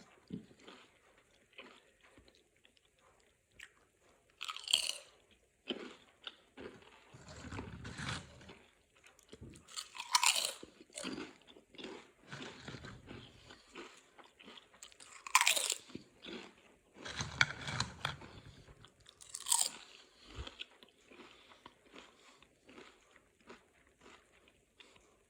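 Potato chips being bitten and chewed: crisp crunches and chewing, with four loud, sharp crunches about five seconds apart.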